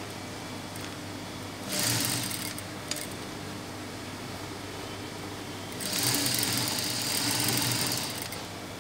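Industrial lockstitch sewing machine stitching a seam in two runs: a short burst about two seconds in, then a longer run of about two seconds near the end. A steady low hum is heard between the runs.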